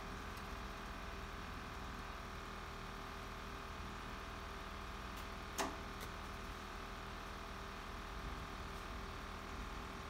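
A single sharp snap of a rubber band a little past halfway, with a couple of fainter ticks around it, over a steady faint hiss.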